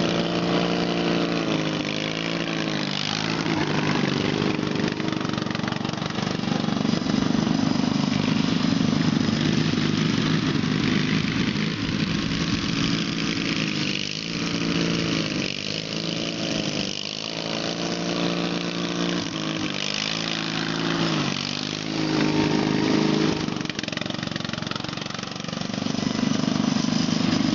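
Racing lawn mower engines running hard around an oval track, their pitch dipping and climbing back up several times.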